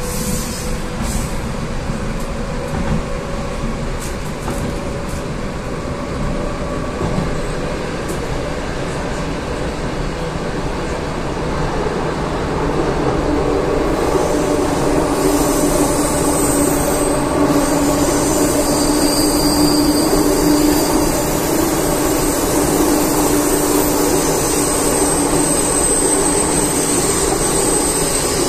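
Moskva-2024 metro train heard from inside the car while it runs through the tunnel: a steady rumble and rush of noise that grows louder about halfway through, when a steady whine comes in over it.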